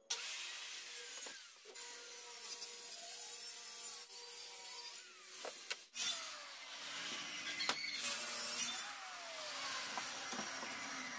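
Handheld circular saw ripping a wooden 2x3 lengthwise into strips, in several short segments with abrupt breaks between them.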